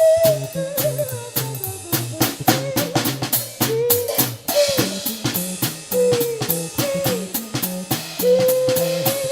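Instrumental music: a drum kit with snare rimshots and bass drum keeping a steady beat under a pulsing bass line, with a lead melody of sliding, bending notes.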